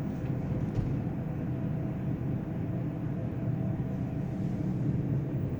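Steady engine and road noise inside a moving car.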